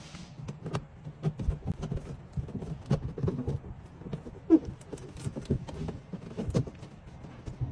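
Irregular clicks, squeaks and knocks of a wire being pulled around a window's rubber seal, the seal lip flicking over the frame as the glass is seated, with hands pressing on the glass. There is a sharper knock about halfway through.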